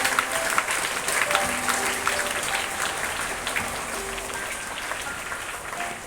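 Crowd of students clapping, strongest at first and gradually fading, with a few short held musical notes playing over it.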